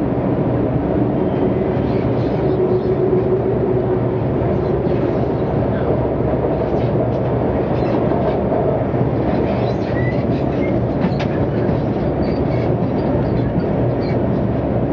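Shanghai Metro Line 1 train running, heard from inside a crowded car: a steady, loud rumble of wheels and running gear with a hum that rises in pitch over the first few seconds. A few short clicks come about eleven seconds in.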